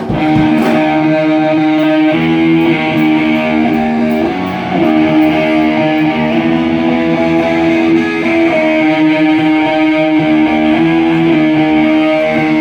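Live rock band music led by a distorted electric guitar holding sustained notes and chords that change every second or two.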